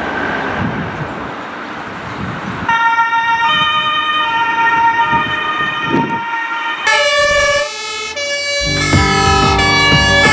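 A truck engine running, then about three seconds in a German two-tone emergency siren (Martinshorn) starts sounding its alternating notes. Near the end the siren gets louder and a deep engine rumble comes in under it.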